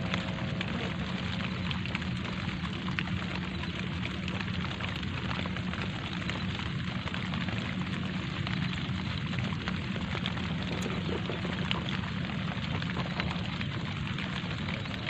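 Light rain falling steadily: an even hiss of rain with many small ticks of single drops.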